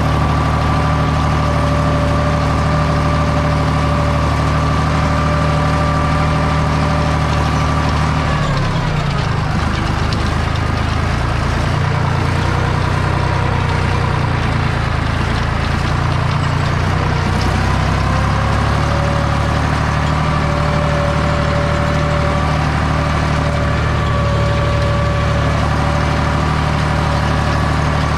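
Deutz 5206 tractor's air-cooled three-cylinder diesel running steadily under load, heard from inside the cab. About eight seconds in the engine speed falls and runs unevenly through the headland turn, then climbs back to its working pitch.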